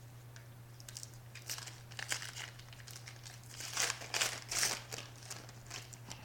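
Foil wrapper of a trading card hobby pack crinkling as it is torn open: irregular crackly rustles, loudest about four seconds in.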